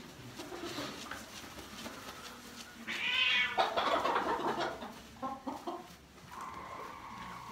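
Hens calling: a loud squawk about three seconds in, a few short clucks a little after five seconds, then one long, drawn-out call near the end.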